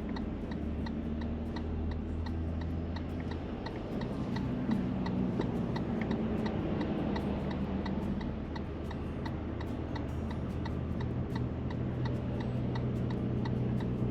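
Turn-signal indicator ticking evenly inside the cabin of a Toyota LandCruiser 200 Series, over the steady low drone of the engine and road.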